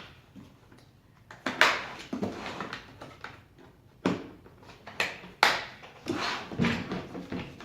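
Handling of a plastic socket-set case with its foam insert: a string of sharp knocks and clicks at uneven intervals, starting about a second and a half in, as the case and the steel impact sockets inside are moved about.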